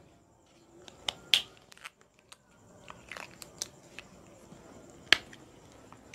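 A few faint, scattered clicks and taps, the loudest about five seconds in, over quiet room tone: handling noise from the markers in the teacher's hand.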